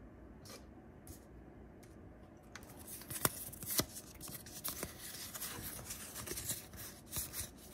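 Yu-Gi-Oh trading cards being picked up and slid against one another in the hands, a run of sharp clicks and snaps starting about two and a half seconds in.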